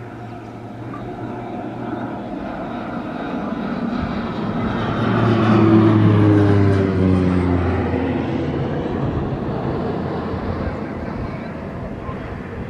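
Light propeller aircraft passing overhead. The engine drone swells to its loudest about halfway through, its pitch dropping as it goes by, then fades away.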